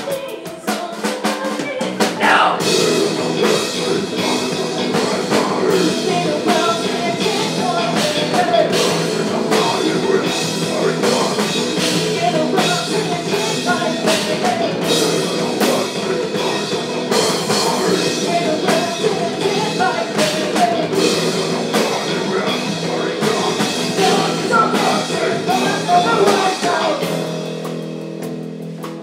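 Live rock band playing: drum kit, electric guitar and bass guitar, with a woman singing into a microphone. After a lighter opening the full band comes in about two seconds in, and the music thins out near the end.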